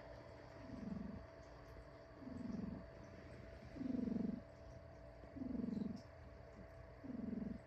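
An old cat snoring in deep sleep: a low, grainy purring rumble on each breath, five times about every one and a half seconds, gurgling like a pigeon cooing.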